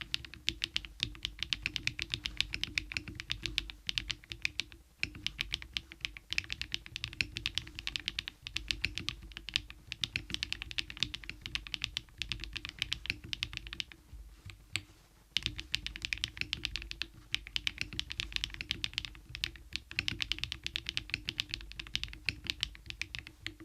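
Fast, continuous typing on a KiiBOOM Phantom 81 V2 mechanical keyboard, a dense stream of keystroke clacks. There are brief pauses about five seconds in and again around fourteen seconds.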